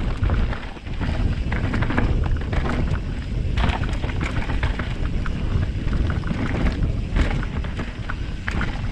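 Mountain bike descending a trail at speed, heard through a helmet-mounted GoPro's microphone behind a foam windshield in wind mode: a steady low wind rumble with frequent short rattles and knocks from the bike and tyres on the rough ground.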